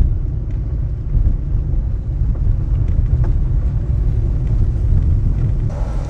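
Car driving on a gravel road: a steady low rumble of tyres on the gravel and the engine. Near the end a brighter hiss joins in.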